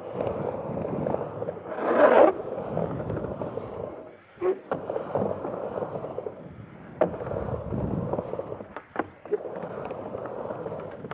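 Skateboard wheels rolling up and down the transition of a vert ramp, a steady rushing roll with a louder rush about two seconds in and a brief lull near four seconds. Several sharp knocks of the board come through later, about a second or two apart.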